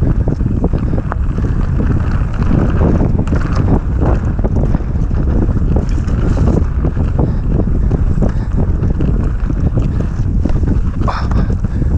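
Wind rushing over the camera microphone of a mountain bike going fast down a dirt singletrack, with frequent knocks and rattles from the bike over the rough ground.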